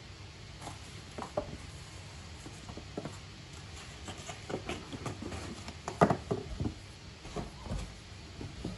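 Cardboard boxes being handled and set down on a wooden floor: an irregular string of light knocks and taps, the loudest about six seconds in.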